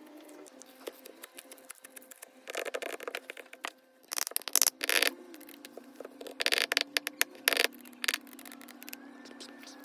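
Popcorn slime being squeezed and worked by hand: a steady run of crackling clicks, with several louder bursts of crackling as it is pressed.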